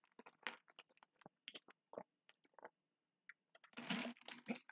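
A man drinking from a plastic water bottle: a run of faint swallowing and mouth clicks, then a breathy exhale near the end.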